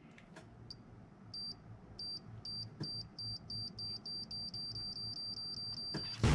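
Short, high electronic beeps that come faster and faster and merge into one steady tone before cutting off, like a countdown-timer sound effect.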